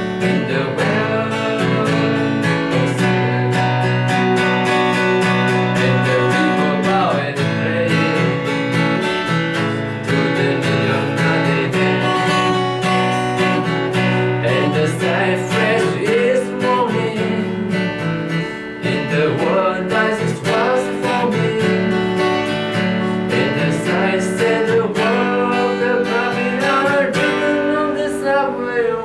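Acoustic guitar strummed in an instrumental passage of a live song, with a melody line over it that bends and wavers in pitch.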